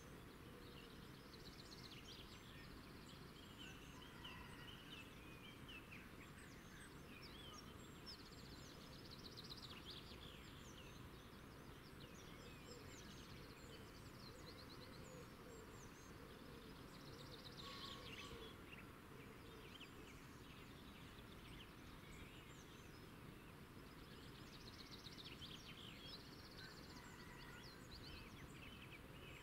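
Faint outdoor ambience: a steady low background hiss with small birds chirping and twittering on and off, including a few quick trills.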